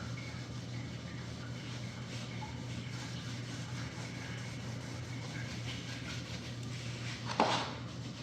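A steady low hum with faint background noise, and a single short, sharp knock a little over seven seconds in.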